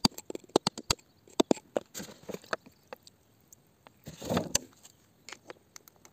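A pointed steel tool tapping and picking at wet rock around an embedded crystal: quick irregular sharp clicks, thinning out after the first second, with a short scrape about four seconds in.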